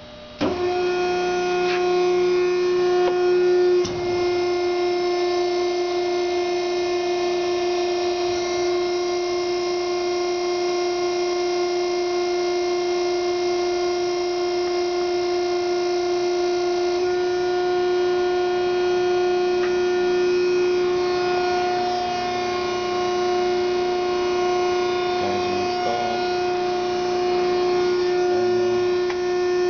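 Hydraulic pump unit of a 1993 Wysong & Miles 100-ton hydraulic press brake switching on about half a second in and then running with a steady whine.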